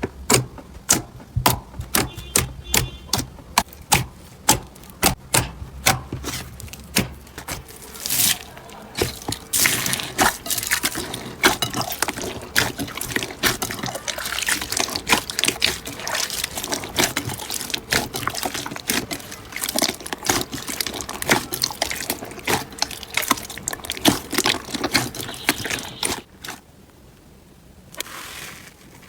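Slime being squeezed and worked by hand: a stream of sharp wet clicks and pops, growing into a dense sticky crackle from about eight seconds in.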